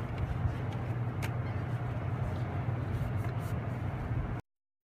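Steady low machinery hum with a few faint ticks, cutting off abruptly about four and a half seconds in.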